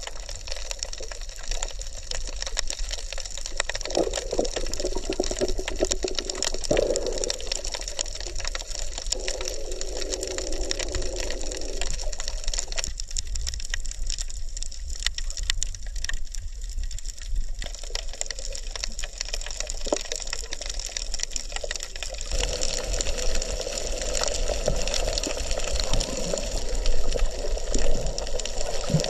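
Muffled underwater sound of seawater sloshing and gurgling around a submerged camera, with a few louder splashes near the end.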